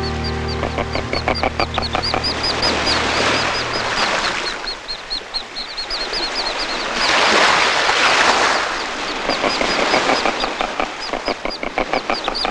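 Merganser ducklings peeping continuously, quick high thin calls several a second, over waves washing in and out. A held musical tone fades out in the first few seconds.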